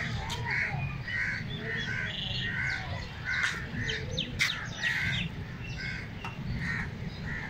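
Crows cawing over and over, about two harsh calls a second.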